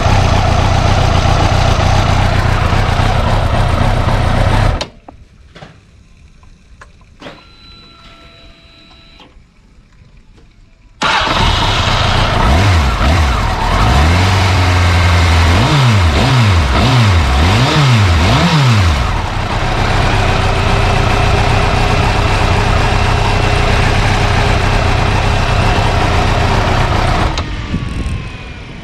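Honda CBR929RR inline-four engine idling. It falls away to quiet for about six seconds, then comes back and is revved in about six quick blips, each rising and falling, before settling back to a steady idle.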